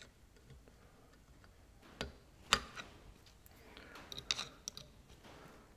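A few light metallic clicks and ticks: a thin steel tool working a split pin in the castellated nut of a front wheel hub, prising its legs apart. There are two sharp clicks about two seconds in, then a quick run of small ticks around four seconds in.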